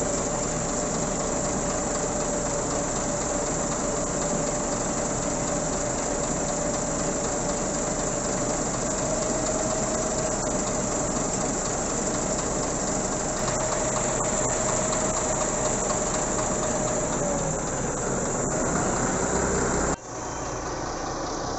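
A heavy vehicle's engine running steadily with a loud hiss and a held whine, which wavers and bends in pitch near the end. The sound cuts out abruptly for a moment shortly before the end.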